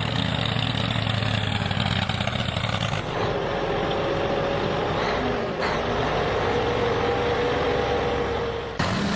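Truck engine running steadily, its note changing about three seconds in.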